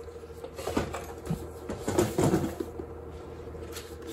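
Short metallic clicks and knocks of a key turning in an electric bike's battery lock and the battery pack being handled, a few scattered at first and a quick cluster about two seconds in, over a steady low hum.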